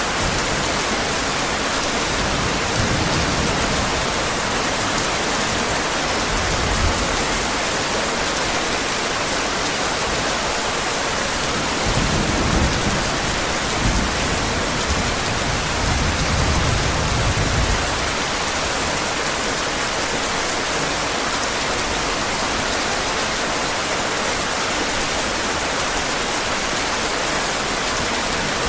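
Steady heavy rain. Low thunder rumbles under it a few seconds in, and again for several seconds around the middle.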